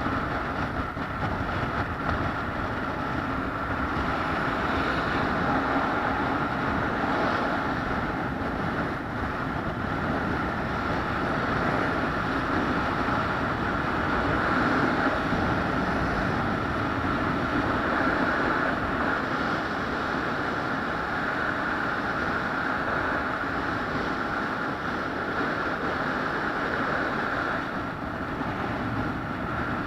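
Steady running drone of a moving vehicle, an even noise with a constant hum that neither rises nor falls.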